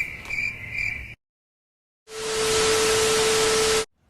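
Cricket chirping, about three chirps a second, cutting off about a second in. After a second of dead silence, a loud burst of static hiss carrying a steady low tone runs for nearly two seconds and stops abruptly, like a TV-static transition effect.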